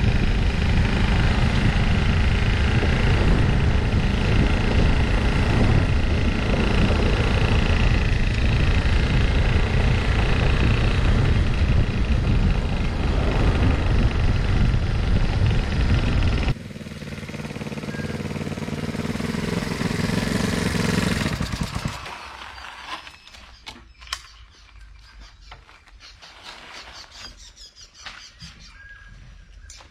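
Honda CB125 motorcycle engine running steadily, loud and low; about two-thirds of the way through the sound changes and swells, then falls away about 22 seconds in, leaving faint squeaks and clicks.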